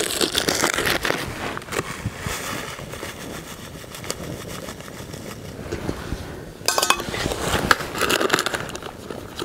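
Rustling and crackling of a small cardboard box being handled and opened, in bursts, busiest in the first second and again from about seven seconds in.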